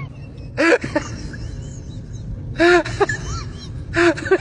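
Animal calls: three loud, short pitched cries about two seconds apart, with faint short chirps between them.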